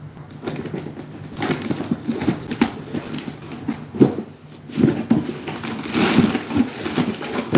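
Large cardboard box being handled and pulled open: cardboard rustling and scraping, with irregular knocks and thumps, the sharpest about four seconds in.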